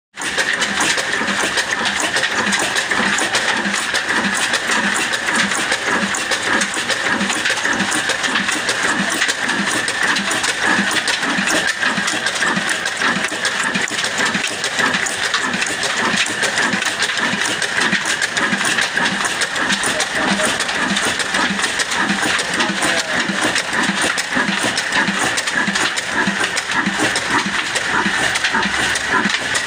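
Kala 'Fine Mughal' slow-speed oil engine (22 HP, 275 RPM) running steadily with an even, slow beat of firing strokes, over a steady high hiss.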